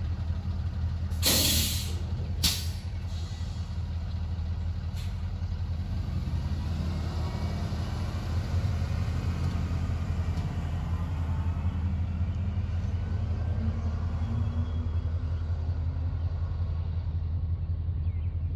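Diesel locomotive engine running steadily with a low hum, with a sharp hiss of air from the brakes about a second in, a shorter hiss just after it, and a faint one a few seconds later.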